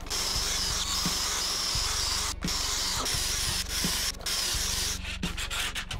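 Cordless drill boring pocket holes through a pocket-hole jig into the end of a 2x4, the motor running steadily with a high whine and stopping briefly three times.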